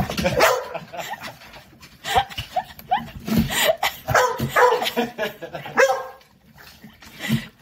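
Dogs barking in a string of short barks, going quieter for about a second near the end.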